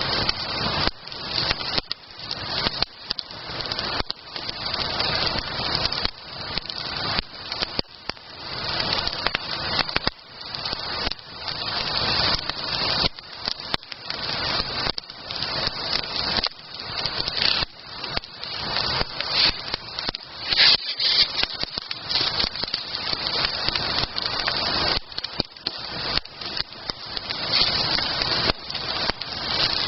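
Wood campfire burning, crackling continuously with many sharp, irregular pops.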